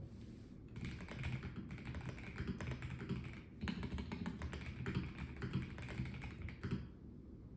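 Typing on a Melgeek Mojo84 mechanical keyboard with a plastic case: a fast run of key clicks starting about a second in, with a short pause halfway, and stopping near the end.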